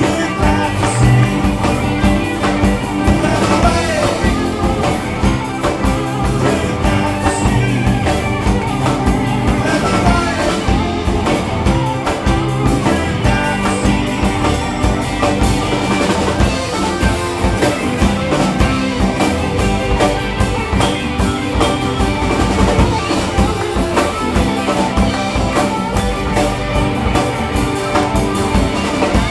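Live alt-country rock band playing a song at full volume: electric guitars, acoustic guitar, bass guitar and a drum kit keeping a steady beat.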